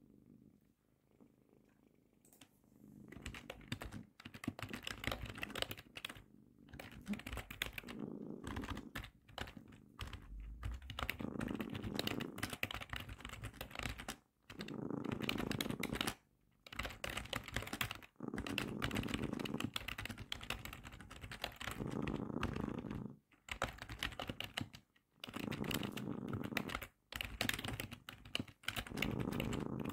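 Domestic cat purring close to the microphone in swells every couple of seconds, starting about two seconds in, with computer keyboard typing clicking over it.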